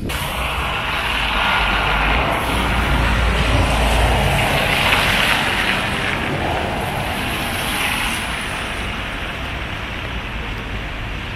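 Road traffic on wet pavement: a vehicle's low rumble and tyre hiss swell to their loudest about four to five seconds in, then ease off to a steadier traffic noise.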